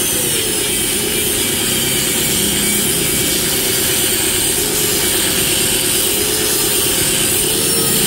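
Angle grinder cutting through a motorcycle exhaust muffler's casing along the factory weld seam, running steadily. Its whine wavers slightly as the disc bites.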